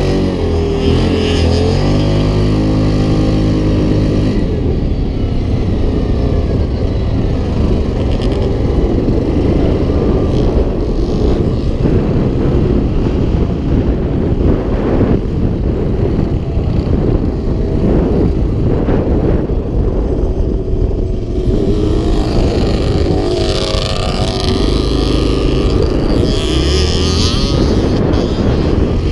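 Yamaha Grizzly 700 quad's single-cylinder four-stroke engine heard from on board while riding over sand, the engine note rising and falling with the throttle. Through the middle stretch it is buried in a heavy rushing noise of wind on the microphone.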